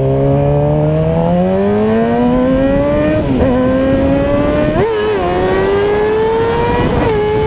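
Suzuki GSX-R600 inline-four engine accelerating hard. The revs climb steadily and dip sharply at three upshifts: a few seconds in, about two-thirds of the way through, and near the end.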